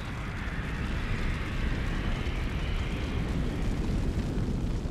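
Sound-design effect for a solar eruption: a deep rumble with a rushing, roaring hiss over it, slowly growing louder.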